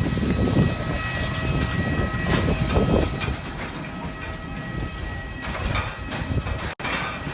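Airbus A320 cabin during taxi after landing: a steady rumble of the landing gear rolling over the taxiway, with knocks and rattles, over a steady whine from the engines and cabin air. The sound drops out for an instant near the end.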